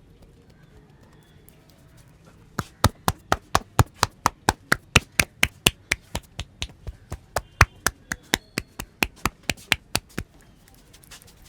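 Percussive head massage: a fast, even run of sharp taps on the head, about four a second, starting a couple of seconds in and stopping shortly before the end.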